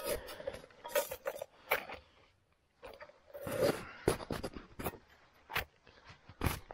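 Irregular scrapes and rustles of things being handled, in short strokes, with a brief quiet gap a little past two seconds in.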